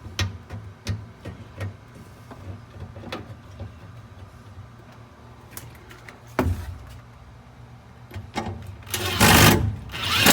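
Light clicks and knocks of parts and screws being handled on a dryer cabinet, with a sharp knock about six seconds in; near the end a power driver runs twice in quick succession, driving a panel screw home.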